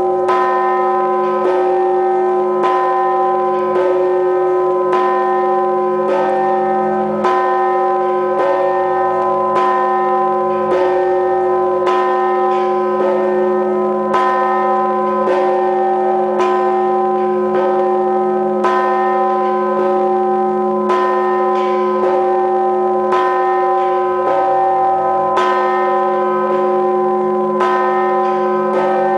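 Large church bell tolling with steady single strikes, about 54 a minute. Each strike rings on into the next, so the bell's hum never dies away between strokes.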